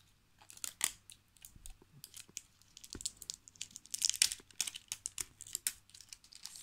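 Crinkly wrapping of an L.O.L. Surprise toy capsule crackling and tearing as it is peeled off by hand: a run of irregular crackles and clicks, thickest about four seconds in.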